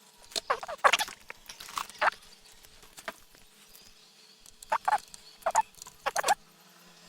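Animal calls: a string of short pitched calls in two bunches, about a second apart within each bunch.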